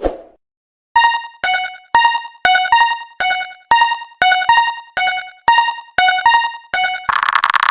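Japanese railroad crossing (fumikiri) warning bell as a cartoon sound effect: a repeating two-tone electronic ding, about two strikes a second. It follows a short low blip at the start, and near the end it switches to a dense, rapidly pulsing buzz.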